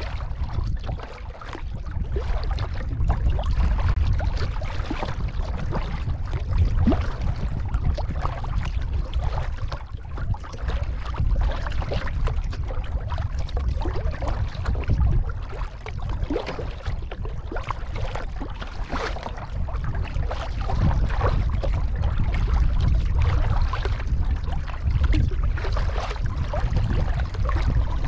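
Kayak being paddled on open water: paddle strokes splashing and water sloshing along the hull, over a steady low rumble.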